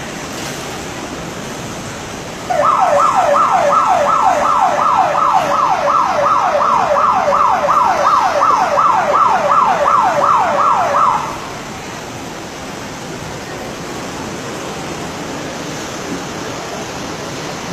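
An electronic alarm siren starts a few seconds in and sounds for about nine seconds: a loud, quickly repeating falling tone, about two and a half sweeps a second, which then cuts off suddenly.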